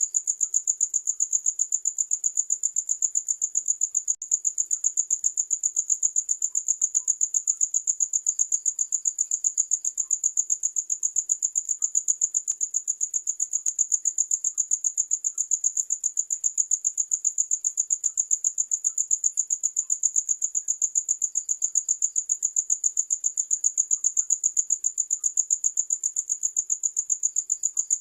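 Cricket chirping steadily: one high-pitched tone repeated in an even, fast rhythm of about four chirps a second.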